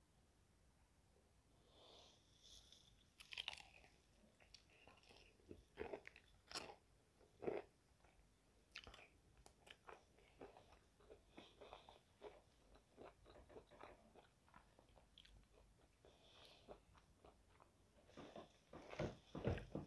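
Crunching and chewing of crispy fried chicken: quiet, irregular crackles and mouth sounds, with the loudest crunches a few seconds in and again near the end.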